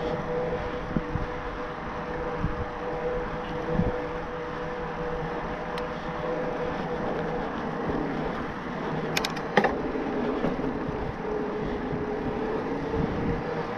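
Riding noise of a Cube Acid Hybrid e-mountain bike: steady wind and rolling noise with a constant mid-pitched whine, and a few sharp clicks about nine seconds in.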